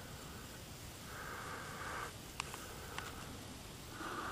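A horse breathing softly through its nostrils, in several noisy breaths each about a second long, with a few faint clicks.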